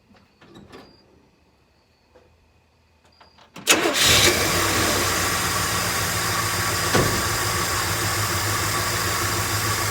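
Truck engine with a newly fitted carburetor starting about three and a half seconds in, catching almost at once on a very short crank, then idling steadily. A few faint clicks come before it.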